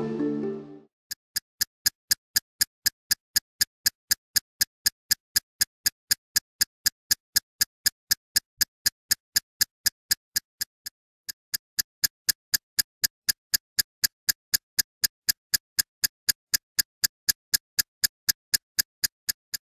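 Typewriter-style keystroke clicks of a title-text sound effect, a dry tick about four times a second, pausing briefly about eleven seconds in. The intro music fades out in the first second.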